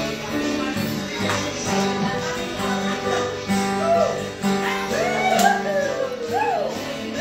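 Music playing for a game of musical chairs, its running signalling the players to keep circling the chairs. About halfway through, several voices call out and squeal over it.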